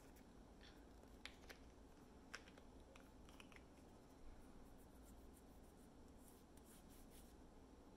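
Near silence with faint, scattered clicks and light rustling as a small plastic cosmetic tube is handled.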